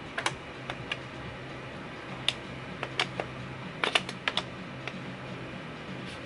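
Irregular sharp plastic clicks as the bottom edge of a laptop's plastic screen bezel is pressed down with fingers and a small tool, its clips snapping into place. A quick cluster of clicks comes about four seconds in, over a low steady hum.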